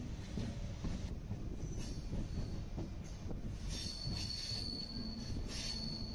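MEMU electric multiple-unit train running on the rails with a steady low rumble. A thin, high-pitched wheel squeal sets in a little under four seconds in and holds.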